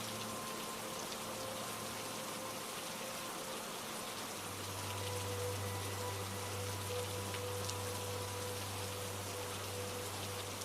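Steady rain falling, with soft held low notes underneath that shift to a new chord about four and a half seconds in.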